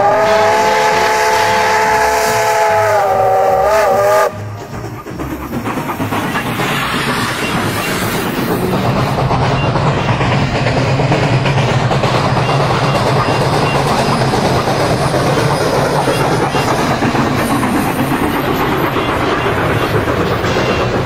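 Steam locomotive whistle sounding a chord of several notes for about four seconds, its pitch sagging as it cuts off. After that comes the steady rumble of the train running, which builds over the next few seconds.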